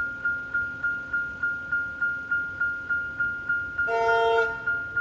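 Level crossing warning bell ringing steadily at about three and a half strikes a second. About four seconds in, the approaching Tait electric train sounds a short horn blast of about half a second, the loudest sound here.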